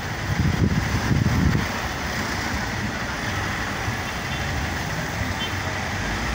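Road traffic: a steady hum of vehicle engines and tyres from the street, with a louder low rumble in the first second and a half.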